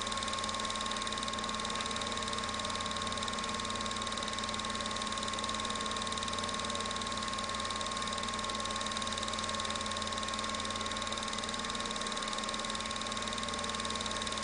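Film projector running: a steady whir from its motor and fan, with a constant hum and a thin steady whine, unchanging throughout.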